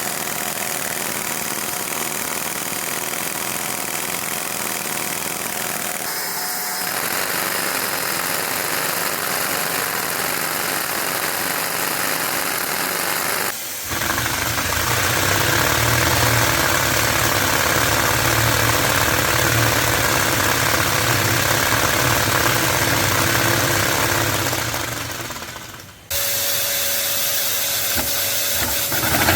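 A vacuum cleaner running steadily while LEGO vacuum-powered engines rattle mechanically. The sound changes abruptly about 6, 14 and 26 seconds in.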